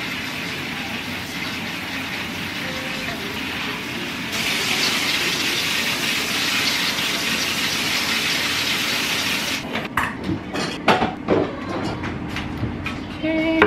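Kitchen tap running into the sink as Brussels sprouts are rinsed under it; the water gets louder about four seconds in and is shut off about ten seconds in. Then come a few sharp knocks and clatters.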